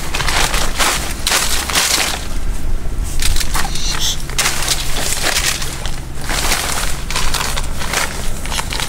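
Woven plastic sacks rustling and crackling as they are handled and pulled around bamboo poles, in a run of irregular crinkles.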